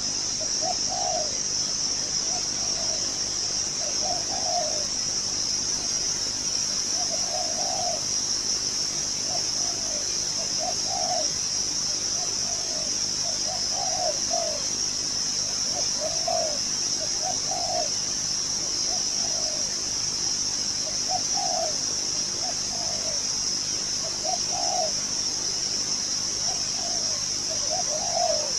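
A decoy dove cooing in short phrases repeated every second or two while resting on its perch. A steady high-pitched buzz runs underneath.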